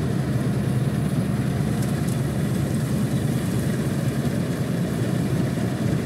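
Kartar 4000 combine harvester running steadily as it works through standing crop: a continuous low machine drone of engine and harvesting mechanism.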